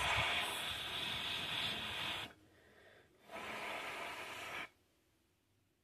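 Two long, breathy hisses close to the microphone, the first lasting about two seconds and the second about a second and a half, with a short gap between them.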